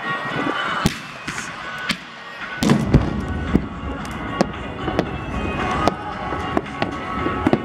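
Aerial firework shells bursting in a string of sharp bangs and crackles, with a heavy boom about two and a half seconds in. Music plays underneath.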